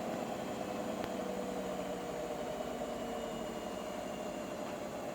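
Hotpoint domestic appliance running with a steady motor hum, with a single click about a second in. This is the clicking noise being recorded as a possible fault.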